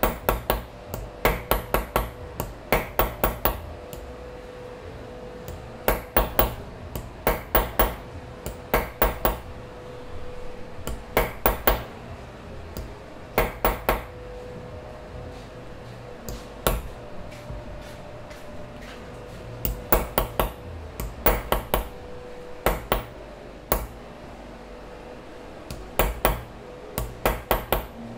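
A small hammer tapping a steel chasing punch against a silver cane cap, refining its relief motifs. The taps come in quick runs of three to six with short pauses between, over a faint steady hum.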